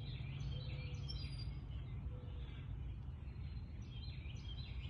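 Faint bird chirps over a steady low background rumble.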